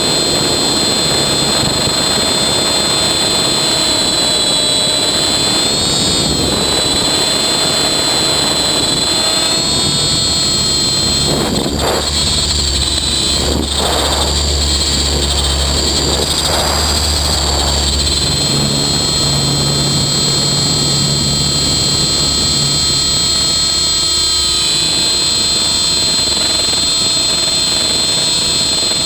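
Electric RC helicopter in flight, heard from its own tail boom: a steady high-pitched whine from the electric motor, drivetrain and tail rotor that wavers in pitch as the rotors are loaded during flips. A low rumble joins it for much of the middle, about 6 to 18 seconds in.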